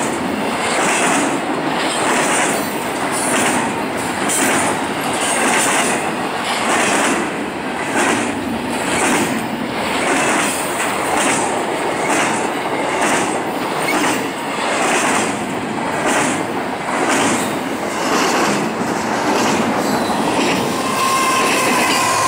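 CSX intermodal freight train rolling past close by, its steel wheels clattering on the rails in an even beat of about one a second. Near the end a locomotive horn chord starts sounding.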